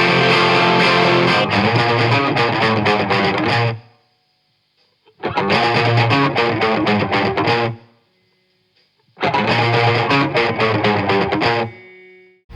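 Distorted electric guitar recording played through an SSL-style VCA bus compressor, in three short passages separated by brief silences, the last one fading out near the end.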